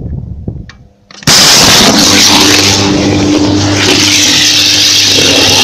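Electrical arc fault in a pole-mounted transformer substation's switchgear, starting suddenly about a second in as the breaker is worked: a loud crackling roar with a deep mains buzz, lasting about four seconds and cutting off abruptly. It is the sound of a short circuit burning through the box.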